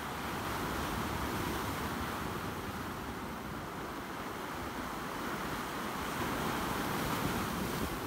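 Sea waves washing in over a rocky shore and breaking white among the boulders, the surf swelling twice, about a second in and again near the end.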